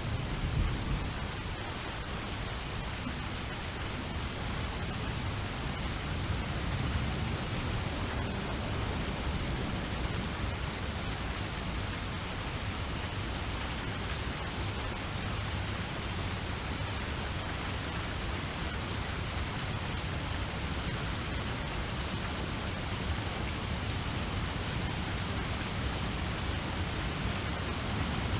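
Steady rain falling, an even hiss, with low rumbles of distant thunder about a second in and again between about four and eight seconds.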